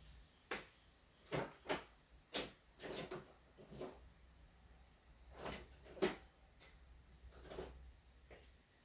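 Scattered knocks and clunks of hard objects being handled and set down on a work surface, about ten of them at uneven intervals, the loudest about six seconds in.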